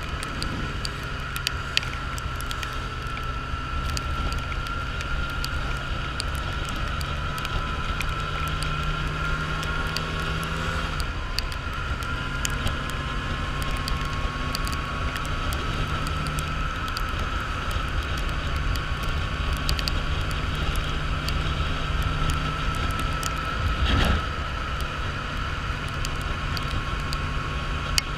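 Motorcycle riding at a steady cruising speed on a wet road, its engine running steadily under wind rush and tyre hiss. There are faint scattered ticks and one brief louder burst near the end.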